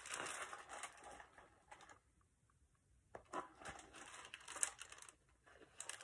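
Pages of a large picture book being turned and the book handled: soft paper rustling, a near-quiet second in the middle, then more rustles with a few light taps.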